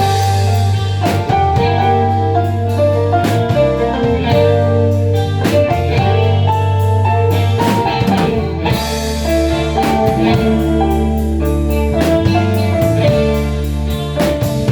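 A band playing a song live, with guitar and drum kit: sustained low notes under guitar lines, and regular drum and cymbal hits.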